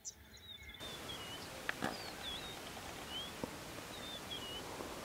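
A steady hiss that sets in abruptly about a second in, with several short bird chirps, quick rising and falling whistles, over it and two faint clicks.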